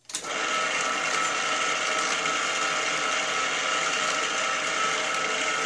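Small milling machine's spindle motor switched on, running steadily with an even whir and gear whine.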